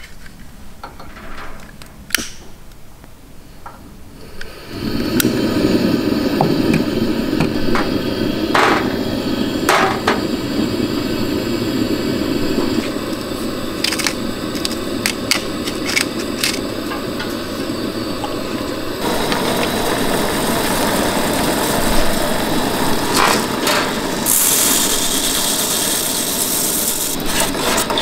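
Coleman two-burner propane camp stove: a burner is lit about five seconds in and then burns with a steady rushing noise under a pot of water, with a few sharp metal clicks.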